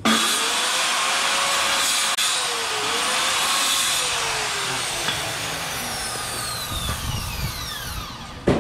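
Handheld electric circular saw starting abruptly and cutting through a wooden board for about four seconds, its motor pitch dipping under load. Then the trigger is released and the blade spins down in a long falling whine, and a sharp knock comes near the end.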